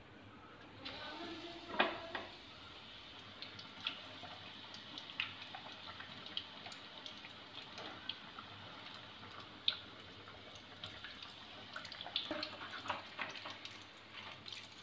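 Batter-coated stuffed eggs deep-frying in hot oil: a steady, fairly quiet sizzle with scattered crackles and pops. The sizzle starts about a second in, with one sharper pop about two seconds in.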